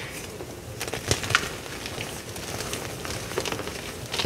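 A block of teal-dyed gym chalk snapped and crumbled by hand. A sharp snap comes at the start, then scattered crisp cracks and crunching as the pieces break apart, with a louder cluster of cracks about a second in.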